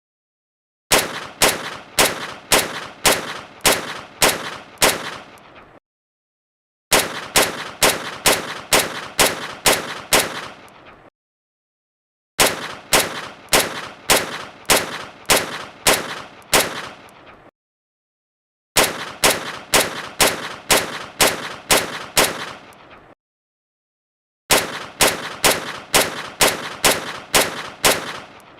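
Desert Eagle pistol firing in five quick strings of about seven shots each, each shot sharp with a short ringing tail, the strings separated by a few seconds of silence.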